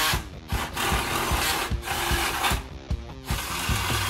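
Cordless drill whirring into the car's sheet-metal front panel in spurts, stopping briefly about half a second in and again near three seconds before running on.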